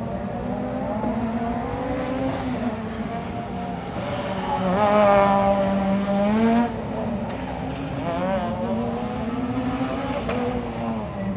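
Rally car engine revving hard through a tight stage, its note rising and falling with throttle and gear changes. It is loudest a little before halfway, climbing in pitch, then drops sharply about two-thirds of the way through as the driver lifts.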